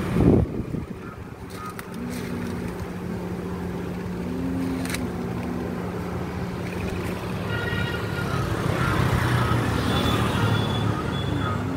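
Steady hum of a motor vehicle engine with road traffic noise, after a single loud thump near the start.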